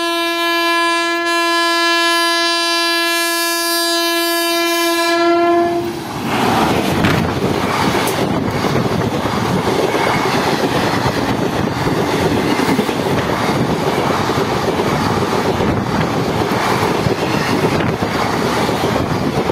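Express train's locomotive horn sounding one long steady blast for about six seconds as the train approaches, cutting off as the engine passes. The Indian Railways chair-car coaches then rush past close by, their wheels clattering rapidly over the rail joints.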